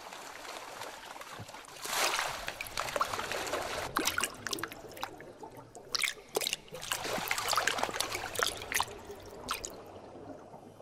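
Water trickling and splashing in uneven little bursts as an aquatic snake stirs the surface; the splashing grows about two seconds in and dies away near the end.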